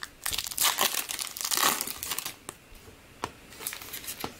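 Foil wrapper of a Topps Finest baseball card pack being torn open and crinkled, in quick crackly bursts with sharp clicks, going quieter for about a second past the middle before crinkling again near the end.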